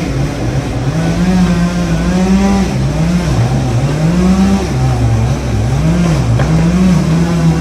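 Chainsaw engine running at high revs, its pitch dropping and rising again several times.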